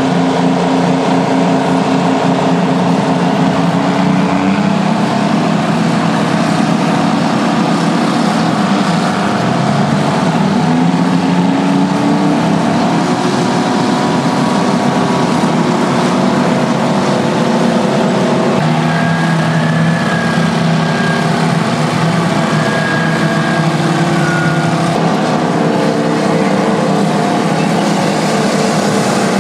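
Twin GM 6-71 two-stroke diesel engines of a Euclid TC-12 crawler bulldozer running hard while it works, the engine note rising and falling as the load and revs change.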